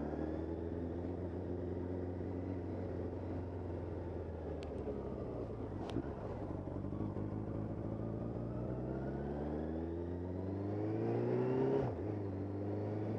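Suzuki GSX750F's inline-four engine running at low revs as the motorcycle rolls slowly. Its note sags a little at first and holds steady, then rises for a few seconds as the bike speeds up, and drops sharply near the end.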